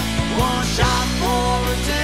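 Rock music: a band playing, with drums and a melody line that slides up and down in pitch.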